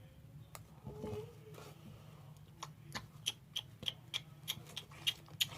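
Slime being squished and stretched by hand, giving a run of small sticky popping clicks, about two or three a second, that start a couple of seconds in.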